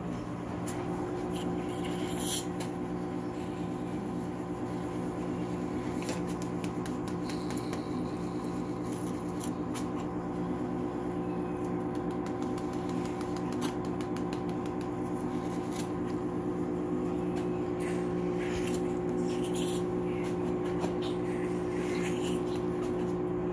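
A steady machine hum throughout, with short bursts of rustling and scraping from towels being handled and rubbed over newborn puppies.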